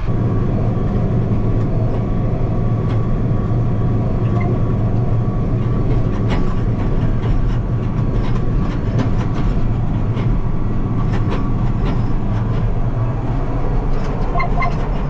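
Farm vehicle engine running steadily while driving across a rough field, with scattered clanks and rattles over the bumps.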